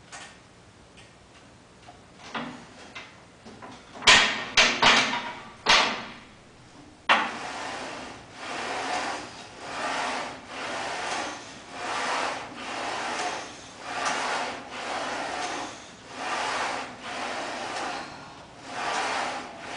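Plate-loaded leg press machine in use: several loud sharp knocks about four to six seconds in, then a steady rhythm of sliding noise, about one stroke a second, as the weighted sled runs up and down its rails.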